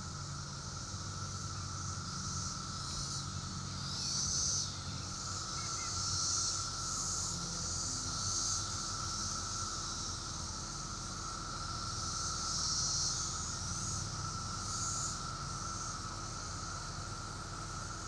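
Chorus of 17-year periodical cicadas: a steady, even insect drone, with a higher hissing layer that swells louder several times.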